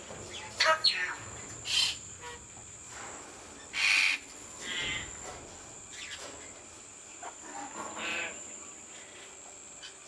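Eclectus parrots giving a handful of short calls and chirps, scattered through, the loudest about four seconds in, over a steady high whine.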